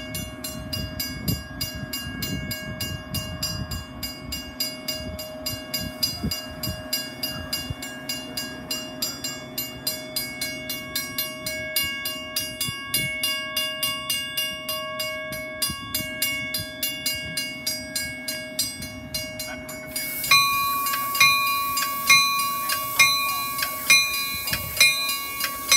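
Metra bilevel commuter coaches rumbling slowly along the platform while a railroad crossing warning bell rings in a steady, even rhythm of strikes. The rumble fades over the first several seconds. About twenty seconds in, the bell becomes louder and brighter.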